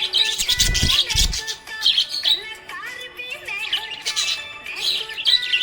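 Budgies chirping and warbling in quick, busy bursts over background music, with two deep bass thumps about a second in.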